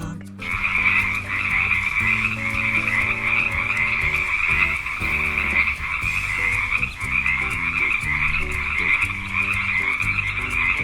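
Frogs croaking in a continuous, dense chorus that starts about half a second in.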